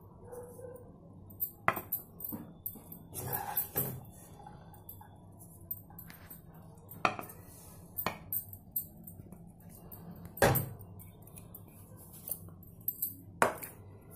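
Wooden spatula scraping and knocking against a nonstick pan and a steel plate while noodles are served, with clinks of the steel plate. The sounds come as a series of separate sharp knocks, the loudest about ten and a half seconds in.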